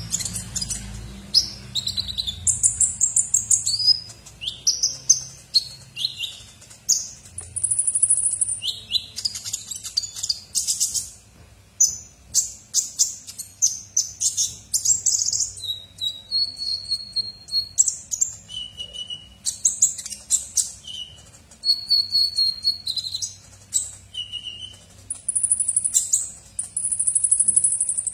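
Male Van Hasselt's sunbird (kolibri ninja) singing without a break: rapid high-pitched chirps and twittering phrases, with a few longer buzzy trills and short clearer whistled notes. It is loudest near the end.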